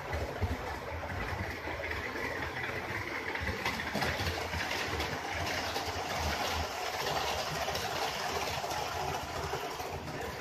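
HO scale model train running on the track, a steady rattling whir of wheels and motor that grows louder about a third of the way in as the train passes close by.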